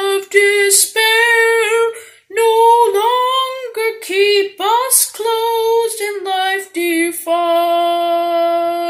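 A boy singing a hymn solo in a high child's voice, unaccompanied, phrase by phrase with a brief breath-gap about two seconds in, ending on a long held note.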